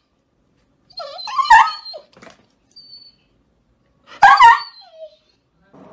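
A dog giving two short, high barks about three seconds apart.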